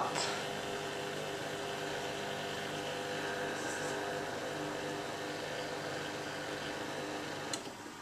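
Neff integrated dishwasher's drain pump running with a steady hum, pumping out excess water at the start of the programme; it cuts off with a click about seven and a half seconds in, before the machine fills.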